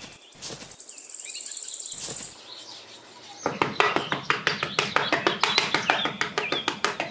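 Birds chirping, then about three and a half seconds in a quick run of scraping taps, about seven a second, as a small metal trowel pats and smooths damp sand.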